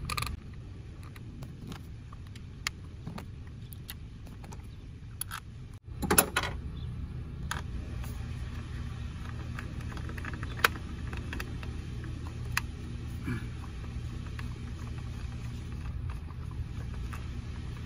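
Scattered metallic clicks and taps of small bolts and a ratchet as the ignition-coil hold-down bolts are put back in on a Honda CR-V engine, over a steady low hum.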